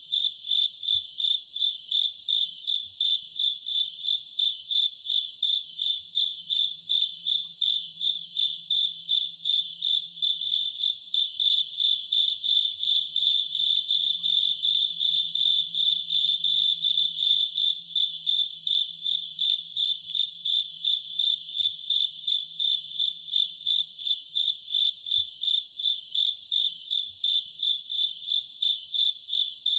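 An insect chirping steadily in an even, rapid rhythm of about two to three high-pitched pulses a second.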